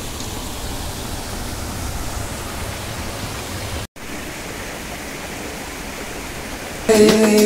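Steady rushing outdoor noise, the sound of running water or wind on the microphone, broken by a sudden dropout about four seconds in. Loud music starts near the end.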